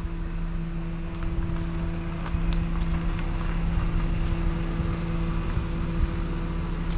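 FPV drone's motors and propellers running at a steady hover, one unchanging hum, over a low rumble of wind on the microphone.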